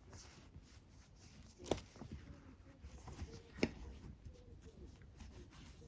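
Faint rustling of 4 mm nylon paracord being handled and drawn through as hands tie a square knot, with two short ticks about two seconds apart.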